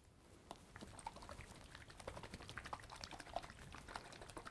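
Faint, irregular sloshing of an oil-and-vinegar salad dressing (olive oil, champagne vinegar, Dijon mustard and garlic) being shaken in a small lidded glass jar.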